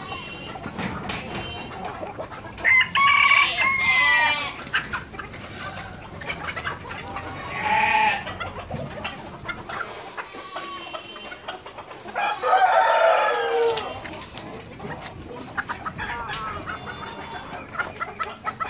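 Fancy chicken roosters crowing, with two long crows a few seconds in and about two-thirds through and a shorter call in between, over the steady clucking of the flock.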